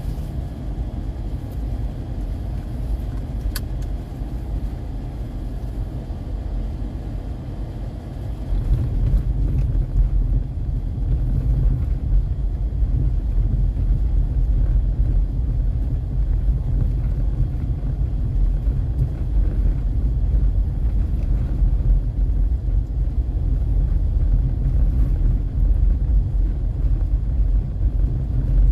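Road and engine rumble inside a moving car's cabin, steady and low, growing louder about eight seconds in.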